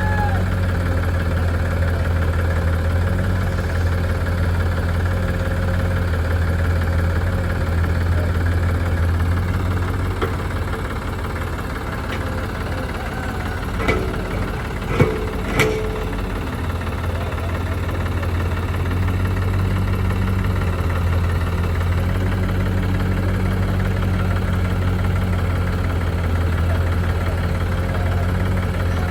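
Diesel engine of a backhoe loader or tractor running steadily at low revs, with three sharp metallic knocks about halfway through, typical of a backhoe bucket striking a trolley while loading soil.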